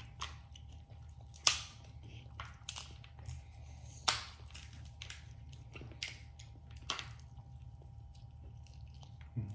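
Eating snow crab legs close to the microphone: chewing and biting, with sharp cracks and snaps of shell, the loudest about a second and a half in and about four seconds in. A steady low hum runs underneath.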